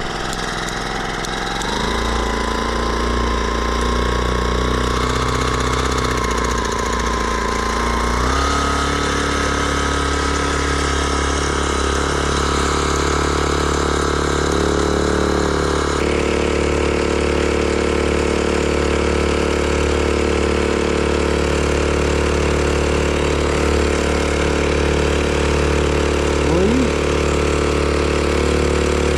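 Small 4-horsepower Chinese outboard motor running the canoe under way. It revs up about a second and a half in, steps up to higher revs at about eight seconds, then holds steady.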